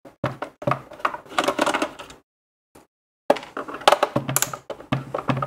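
Hands and a screwdriver working screws out of a plastic motorised bin lid: a run of small clicks, scrapes and rattles. About a second of dead silence falls in the middle.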